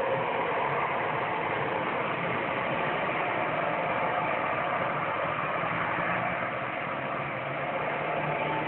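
Steady, unchanging drone with a faint low hum beneath it, like an idling bus or truck engine that never changes, of unidentified origin.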